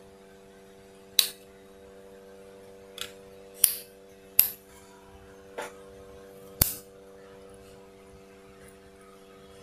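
Six sharp metallic clicks and taps, spaced a second or so apart, as a hex key works the needle-clamp screw on an overlock sewing machine, loosening it so the needle clamp can be turned. A steady low hum runs underneath.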